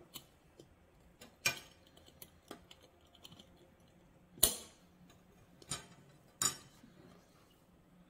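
About six sharp clicks and clinks of a large glass jar with a wire-clamp lid being handled and wiped, the loudest a little past the middle, with a short ring after it.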